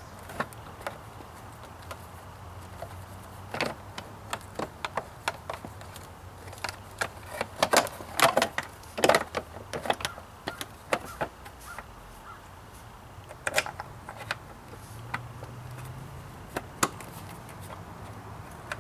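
Irregular clicks, taps and light knocks of hands working on a motorcycle, rerouting a wire and handling plastic clips and parts, busiest about seven to ten seconds in, over a faint steady low hum.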